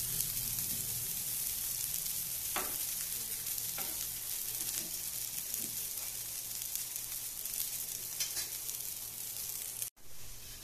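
Potato patties shallow-frying in oil on a flat tawa: a steady sizzle, with a few clicks of a steel spatula against the pan as they are turned. Near the end the sizzle drops out for an instant and comes back a little quieter.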